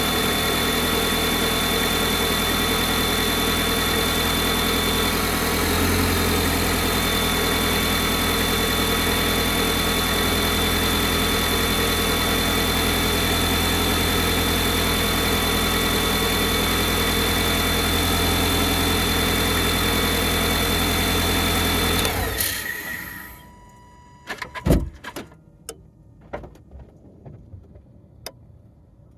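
Vehicle engine idling steadily with a constant high-pitched whine over it, the weird noise it makes when cold. It is switched off about 22 seconds in, leaving a few scattered clicks and knocks.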